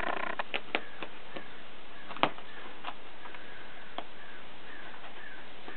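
Irregular sharp clicks and taps, about a dozen, the loudest about two seconds in, over faint room hiss.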